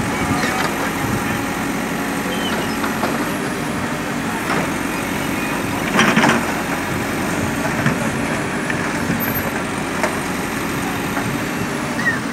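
Hidromek backhoe loader's diesel engine running steadily as its rear bucket digs out broken asphalt, with scattered knocks and clanks of the bucket and asphalt chunks. The loudest knock comes about six seconds in.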